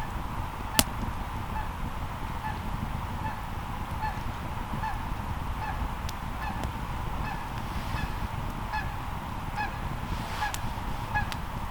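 A long, even series of short tooting animal calls, about two a second, over a steady low rushing noise, with one sharp pop about a second in.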